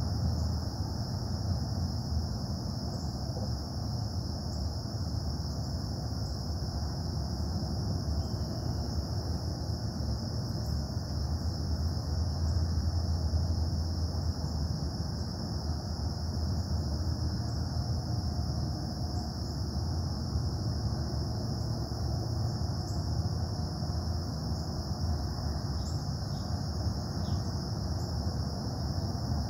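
Steady low industrial rumble from the Casting Solutions foundry, unbroken throughout, with a constant high insect trill over it.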